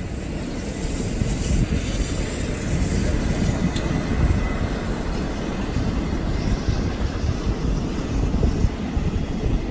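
Passenger carriages of a steam-hauled train rolling past close by: a steady low rumble of wheels on the rails.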